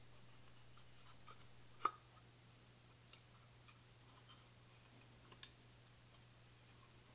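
Near silence with a steady low hum and a few faint clicks from fingers handling a rifle's metal barrel nut while spreading oil on it. The loudest click comes about two seconds in.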